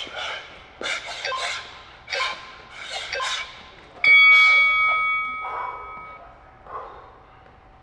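Sharp, quick exhaled breaths with the punches of shadowboxing, then about four seconds in a single bell strike from an interval timer, marking the end of the work interval, ringing out for about two seconds, followed by hard breathing.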